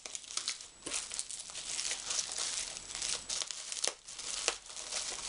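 Plastic bubble wrap crinkling and rustling as it is slit with a box cutter and pulled open by hand, with a few sharp clicks along the way.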